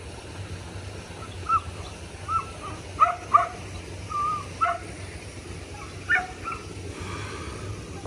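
A dog barking and yipping about seven times in short, high calls, two of them in quick succession about three seconds in, over a steady low background rumble.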